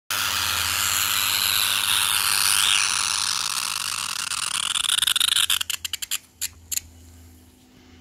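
Electric arc between carbon rods in a kiln-brick cavity, hissing and crackling loudly. A little after five seconds in it sputters in a string of sharp crackles and goes out about a second later.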